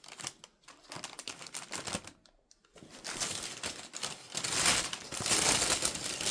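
Shoe wrapping paper rustling and crinkling as it is handled, in quick crackles, with a brief lull about two seconds in, then busier, steadier rustling from about three seconds on.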